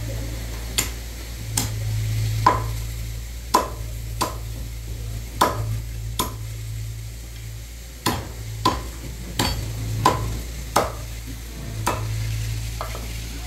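A cleaver chopping boiled chicken on a thick wooden chopping block: a sharp knock with each blow, roughly one a second, about fourteen strikes in all, over a steady low hum.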